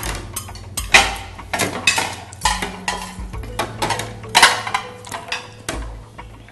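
Knives and forks clinking and scraping on china plates during a meal, with dishes being handled and set down on the table: sharp, irregular clinks, two or three a second.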